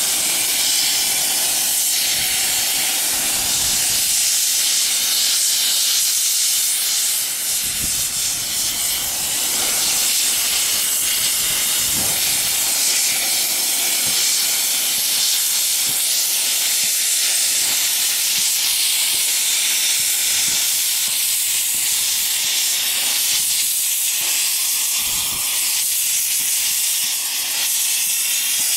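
Steady loud hiss of steam venting from The Bug, a 15-inch-gauge miniature steam locomotive.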